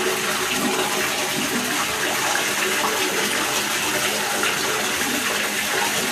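Water running steadily into a bathtub, a constant rushing hiss.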